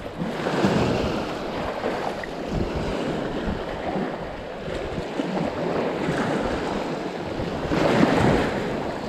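Wind blowing on the microphone over water lapping in the shallows, a steady rush that swells a little about eight seconds in.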